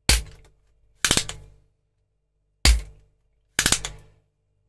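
Spring-loaded desoldering pump (solder sucker) snapping four times as its plunger is released to suck molten solder off the LED digit's joints. Each snap is sharp and short, the four spaced irregularly about a second apart.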